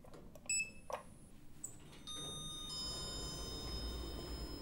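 A click and a short high beep as an Otis elevator call button is pressed. About two seconds in, a held chord of several high chime-like tones begins with a low rumble beneath it: a production-logo sting.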